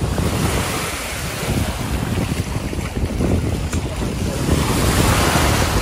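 Small sea waves washing onto a shallow sandy shore, with wind buffeting the microphone in a low rumble. A wash of surf swells near the end.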